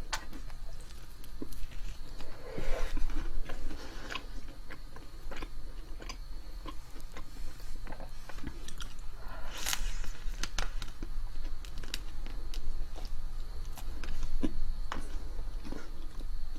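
Close-miked chewing and biting of food: many small wet mouth clicks and soft crunches, with louder crunches about 3 seconds in and near 10 seconds.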